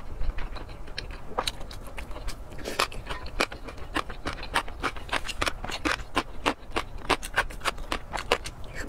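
Close-miked eating sounds: a rapid run of wet chewing and mouth clicks, with a spoon scraping and clinking in a glass bowl.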